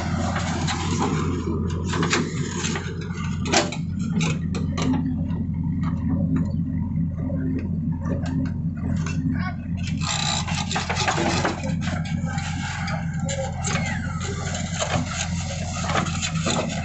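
JCB 3DX backhoe loader's diesel engine running steadily, with metal clanks and rattles over it; a sharp clank about three and a half seconds in, and a longer spell of clatter in the second half.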